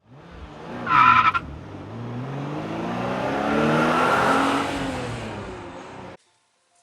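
A car engine revving, its pitch rising and then falling, with a short tyre squeal about a second in. It cuts off suddenly near the end.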